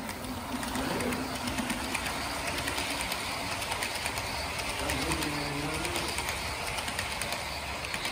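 HO scale model Amtrak passenger train running past at close range: a steady whirring rumble of its wheels and drive on the track with light clicking, swelling as the locomotives and cars pass and easing near the end.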